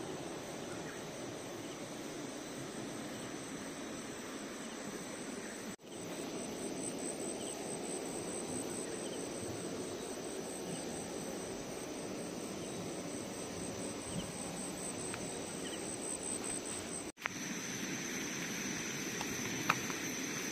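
Steady outdoor riverside ambience: a low, even rush of running river water with a high, steady insect drone over it. Twice the sound drops out for an instant.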